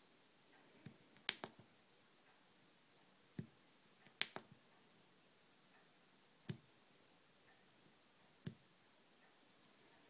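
Sharp clicks of a small thumb joystick module being worked by hand, coming every second or two over near silence, twice in a quick run of two or three.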